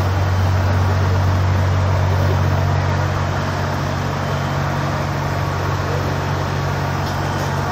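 Fire apparatus engines running at a fire scene, making a loud, steady low drone that stays level throughout.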